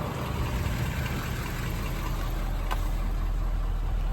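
6.7-litre Power Stroke V8 turbodiesel idling steadily in a Ford F550, with a light click about two and a half seconds in.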